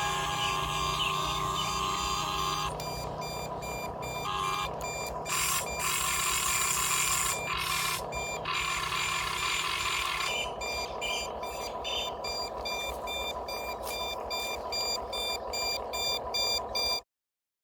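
1/20 scale RC CAT 330D L excavator running, with repeated electronic alarm-like beeping over a steady mechanical whir. The beeping pulses more quickly in the second half, and all sound cuts off suddenly near the end.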